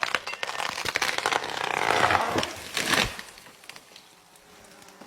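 A large old pine tree falling: rapid cracking and splintering of the wood, a rising rush of branches through the air, and a heavy crash as it hits the ground about three seconds in, fading quickly after.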